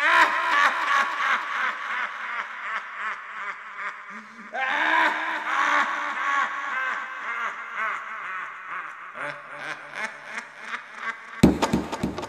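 A man laughing heartily in long runs of quick ha-ha bursts, with a fresh burst of laughter about four and a half seconds in. Near the end a sudden hit sounds and music begins.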